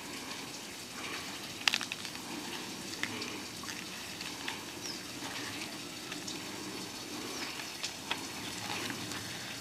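Water trickling and splashing, with scattered light clicks and knocks from handling a wet metal find; the sharpest click comes about a second and a half in.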